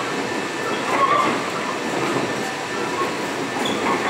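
Steady running noise inside a moving Bombardier Innovia Monorail 300 car: an even rumble from its rubber-tyred running gear and drive on the elevated guideway.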